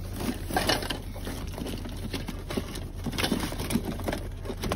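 Rummaging through gear piled on a car's back seat: rustling and light knocks of items being moved about, over the steady low hum of the car.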